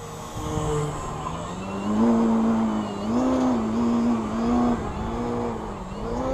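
Radio-controlled model airplane's motor whining as it makes low passes, its pitch climbing over the first two seconds and then dipping and rising again several times with throttle and fly-bys. Wind buffets the microphone underneath.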